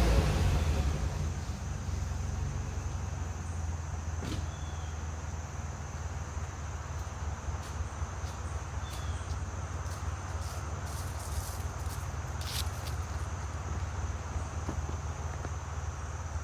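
Minivan V6 engine idling steadily after a rev dies down at the start, a low even hum, while burning off a Powerfoam top-engine cleaning treatment. A faint steady high tone runs alongside, with a few faint clicks.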